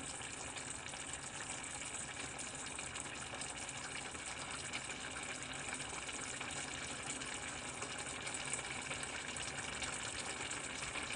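Pot of soup simmering on a hot hob, giving a steady bubbling sizzle.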